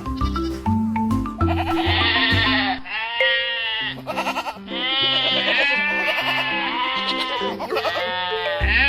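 Goats bleating, a run of several wavering calls one after another, over soft instrumental background music.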